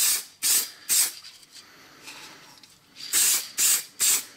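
Aerosol spray-paint can spraying in short hissing bursts: three quick bursts in the first second, a pause of about two seconds, then three more bursts near the end.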